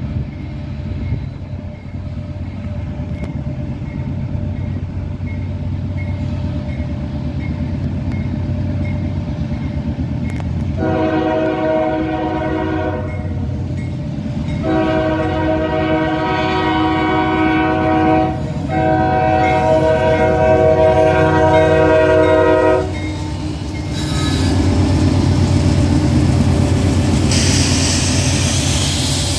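A railroad crossing bell rings about twice a second over the low rumble of an approaching CSX freight train led by a GE CW44AC (AC4400CW) diesel locomotive. About 11 seconds in, the locomotive's air horn sounds a chord in three long blasts. Then the locomotive passes close by, its engine running loud, with a rushing noise near the end.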